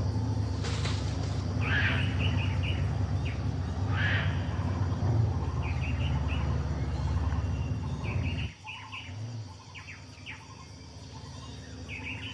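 Jungle birds calling in quick repeated chirps over the steady low rumble of a motorboat engine; the rumble cuts off about eight and a half seconds in, leaving the bird calls.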